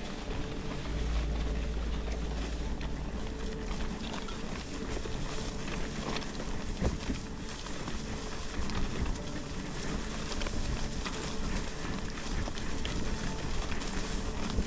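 Bicycle riding a narrow dirt track through tall wheat, the stalks swishing and crackling against the bike and rider over a steady rush of tyre and ride noise. A low wind rumble on the microphone sits under it from about one to four seconds in.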